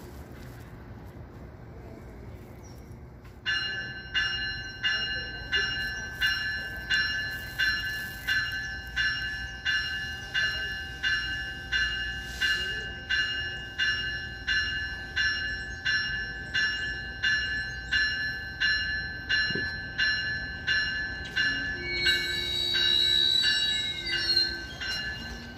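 Train bell ringing steadily, about one and a half strokes a second, starting a few seconds in over a low rumble. A high squeal joins the ringing near the end.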